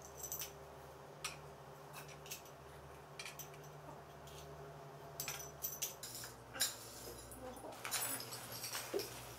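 Aluminium extrusion frame pieces and small metal hardware clinking and knocking as they are handled and fitted together, in scattered light taps that grow busier about six seconds in, over a steady low hum.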